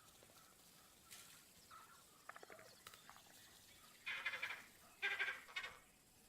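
Two short animal calls, about a second apart, a little after the middle, with a few fainter short calls before them.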